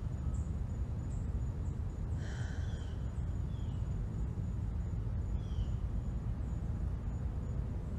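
Outdoor evening ambience: a steady low rumble with a faint steady high whine over it, and a few short, high, falling chirps about two seconds and five and a half seconds in.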